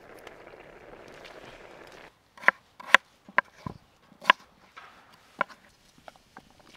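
Steady simmering hiss of a soup pot over a campfire, which breaks off about two seconds in. It gives way to a chef's knife chopping raw potatoes on a wooden cutting board: a run of sharp, irregular chops, the loudest sounds here.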